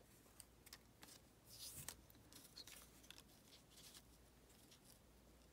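Near silence with a few faint paper rustles and light ticks as small paper cutouts are handled and pressed down onto a paper tag.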